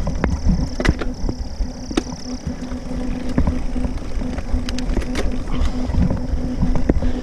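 Mountain bike riding over rough ground: wind rumbling on the microphone, with frequent rattles and knocks from the bike and a steady low hum underneath.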